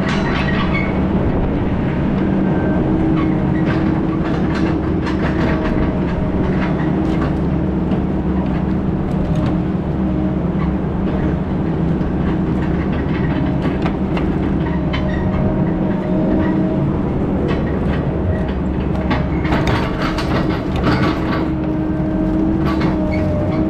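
Heavy diesel engine running steadily under load, with frequent rattles and clanks of loose metal over it.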